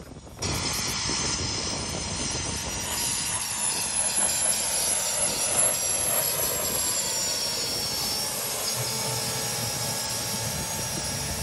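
The International Harvester HT-340's small Solar gas turbine runs as the tractor drives by, a high-pitched whine of several steady tones over a rushing hiss. It comes in abruptly about half a second in.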